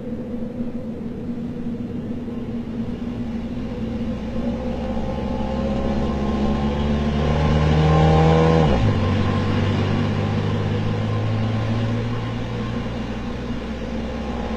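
Car engine running, growing louder as the car approaches, then dropping sharply in pitch about nine seconds in as it passes by, and easing off afterwards.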